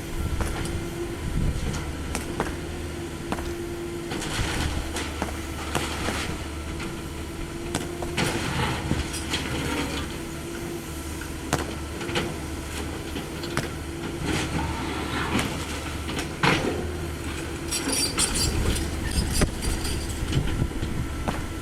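CAT 305.5E2 mini excavator's diesel engine running steadily with a constant whine, while its bucket knocks and scrapes through rubble in irregular clatters, with a spell of metallic rattling near the end.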